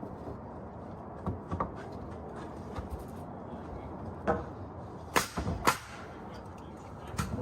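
A handful of short, sharp knocks at uneven intervals, the loudest two close together a little past the middle, over a steady background rush.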